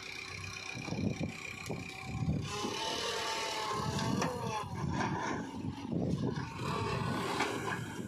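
Sonalika 750 DI RX tractor's engine running as its hydraulic tipping trailer dumps a load of soil, with the rumble of earth pouring out past the swung-open tailgate. About two and a half seconds in the sound grows louder, and the engine pitch rises and falls.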